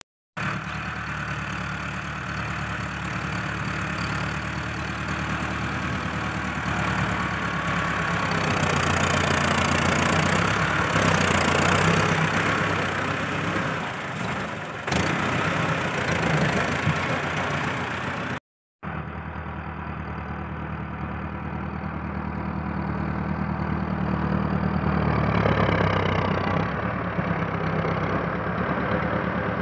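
Massey Ferguson 385 tractor's four-cylinder diesel engine running as the tractor pushes soil with its front blade, its note swelling and easing with the load. The sound cuts out for a moment about two-thirds of the way through.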